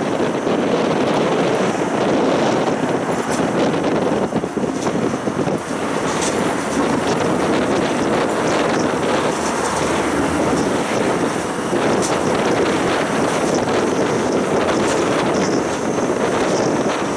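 Siemens Combino low-floor tram running steadily, heard from on board: an even rumble of wheels and running gear on the rails.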